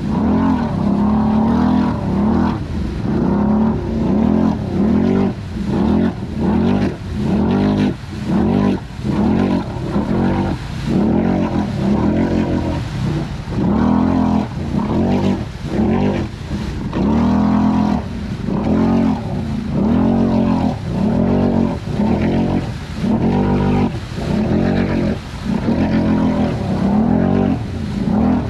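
Can-Am Renegade XMR 1000 ATV's V-twin engine, fitted with an SLG megaphone exhaust, revving up and dropping back over and over, about once a second, as the throttle is worked on and off while riding.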